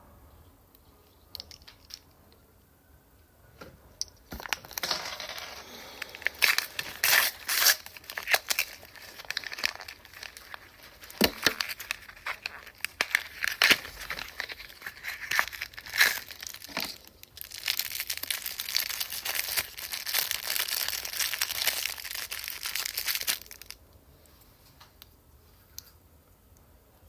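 A toy surprise package's wrapping being torn open and crinkled by hand, starting about four seconds in with sharp rips amid steady crackling, and stopping a few seconds before the end.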